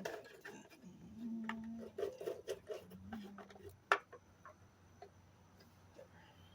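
A run of light clicks and taps of small parts being handled, with one sharper click about four seconds in, then only a faint steady low hum.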